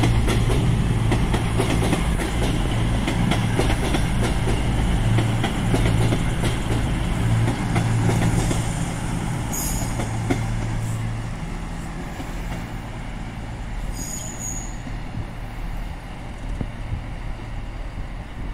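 Avanti West Coast Class 221 Super Voyager diesel-electric multiple unit running past, its underfloor diesel engines giving a steady low drone that fades after about eleven seconds as the train draws away. Two short high-pitched squeals from the train come about ten and fourteen seconds in.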